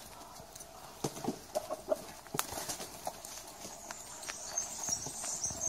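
Muscovy ducks on gravelly ground: scattered clicks and taps with a few short, soft calls, and a high hiss near the end.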